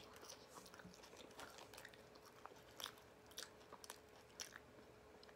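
Faint chewing and crunching of food close to the microphone, with scattered small clicks and mouth noises over a faint steady hum.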